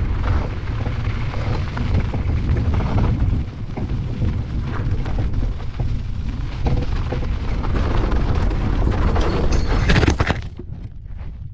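Nami Burn-E electric scooter riding fast on a gravel desert track: heavy wind rumble on the microphone and tyre noise on the gravel. About ten seconds in, a hard skid sprays gravel and dust in a loud burst, then the noise suddenly drops.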